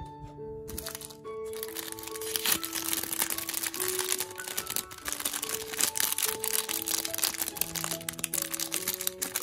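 Clear plastic packaging bag crinkling and crackling as it is peeled open by hand, starting about a second and a half in. Background music with slow, held notes plays under it.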